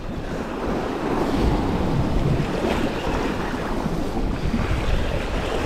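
Sea surf washing against a rocky shore, with wind rumbling on the microphone: a steady, even rush with no distinct strokes.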